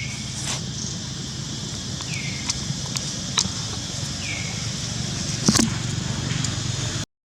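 Steady low hum and hiss of outdoor background, with a short falling chirp three times, about two seconds apart, and a few sharp clicks. The sound drops out briefly near the end.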